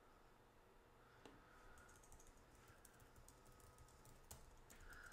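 Faint computer keyboard typing: a quick run of key clicks about two seconds in, with a few single clicks before and after.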